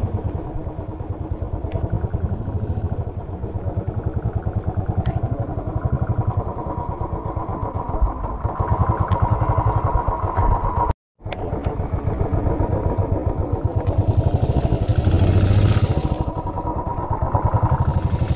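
Royal Enfield Classic 350's single-cylinder engine running at low speed under load through deep mud, with a rapid, even pulse. The revs rise and fall every few seconds as the rider works the throttle.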